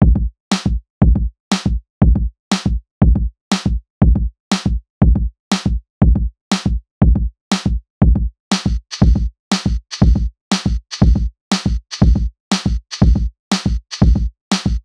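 Background music: a steady drum-machine beat of about two hits a second, with a hissing layer joining a little past halfway.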